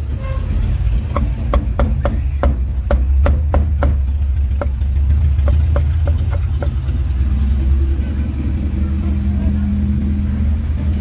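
Steel cleaver chopping roast duck and pork on a round wooden chopping block: a quick run of sharp knocks, two to four a second, that stops about two-thirds of the way through. Under it the steady low rumble of road traffic engines, the loudest sound throughout.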